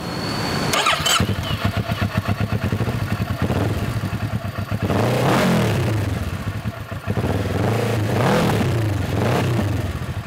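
A Kawasaki Ninja 650's 649cc parallel-twin engine is started about a second in, settles into an idle, then is revved up and let fall back a few times in the second half. The exhaust has been opened up by the owner, so it sounds sharper than the stock exhaust.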